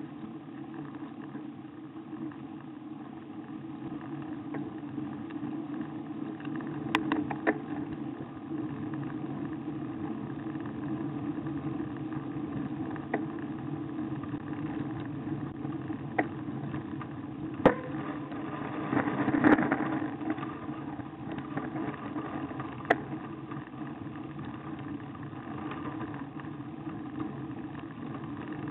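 Steady rumble of wind and road noise picked up by a camera mounted on a road bike climbing a rough lane, broken by a few sharp clicks and knocks as the bike rattles; the busiest, loudest knocks come about two-thirds of the way through.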